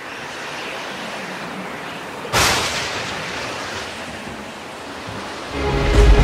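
Sound-effect intro to a film song: a steady rushing noise, a sudden loud crash a little over two seconds in that dies away slowly, then music with a deep bass coming in near the end.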